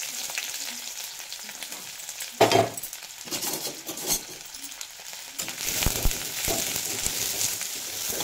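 Sliced onions sizzling in hot mustard oil in an aluminium kadai, being stirred, with louder stirring a little over two seconds in and again from about five and a half seconds.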